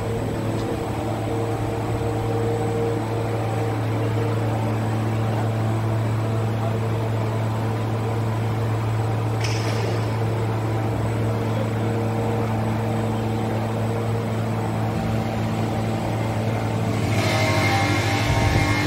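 Ploughshare mixer's electric drive running with a steady low hum, with a brief hiss about halfway through and a louder rush of noise near the end.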